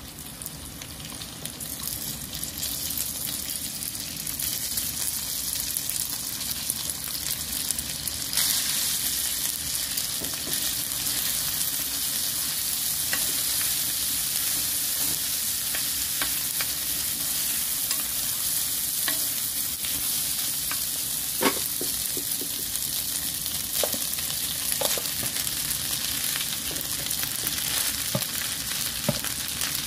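Cooked rice frying in a hot pan of beef and sauce: a steady sizzle that grows over the first few seconds as the rice goes in, with scattered knocks and scrapes of a wooden spatula stirring it against the pan, the loudest a little past the middle.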